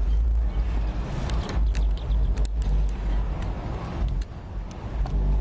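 Wind buffeting the microphone in uneven gusts, a deep rumble, with a few light clicks and knocks of handling about a second or two in.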